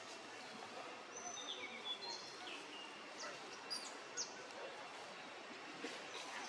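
Outdoor ambience: a steady background hiss with several short, high bird chirps and whistles between about one and four seconds in.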